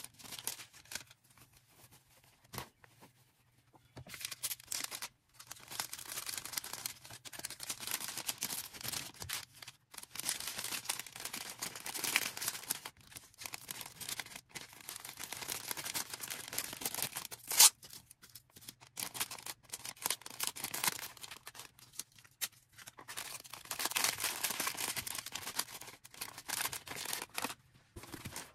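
Order packing by hand: packaging rustling, crinkling and being handled in uneven bursts, with one sharp click about two-thirds of the way through.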